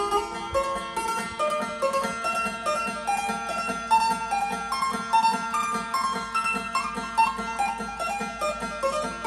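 Phin, the Isan Thai plucked lute, played solo with a pick: a quick melody of bright single notes over a low note picked again and again in a steady rhythm.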